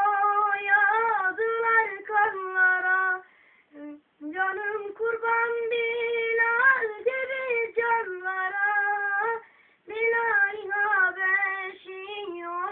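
A child singing solo and unaccompanied in a high voice, in long phrases with sliding, ornamented pitch, pausing briefly for breath twice.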